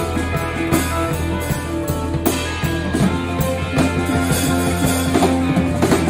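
Live rock band playing an instrumental passage on electric guitar, bass guitar and drum kit, with sustained guitar notes over a steady drum beat.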